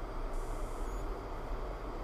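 Steady rumble of a moving vehicle: engine, tyre and road noise while driving.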